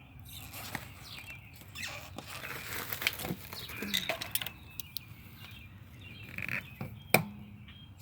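Scattered handling noises while a tire plug kit and tools are readied: irregular rustling and light clicks, with one sharp click about seven seconds in.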